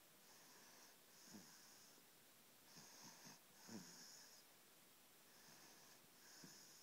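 A sleeping baby snoring faintly: soft, hissy breaths about once a second, with a few short low catches in the throat, the strongest about four seconds in.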